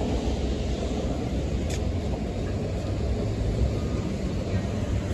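Steady low rumble of a hybrid-electric city bus idling at the curb, mixed with street traffic noise.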